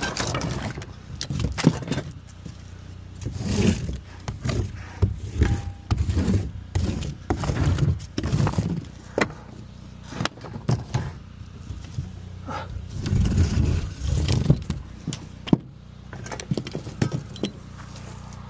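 Scrap wood pieces knocking and clattering as they are tossed into a wooden crate, with irregular handling noise between the knocks.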